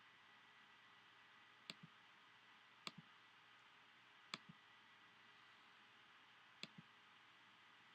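Computer mouse button clicked four times over a faint steady hiss, each click a sharp press followed by a softer release.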